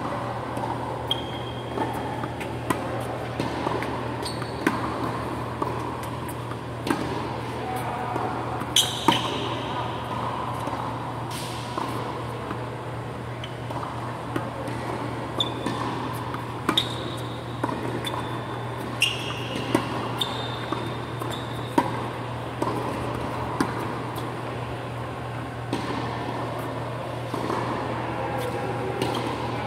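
Tennis balls struck by rackets and bouncing on a hard indoor court: sharp, irregular pops, the loudest about nine seconds in, some followed by a brief high-pitched tone. A steady low hum runs underneath.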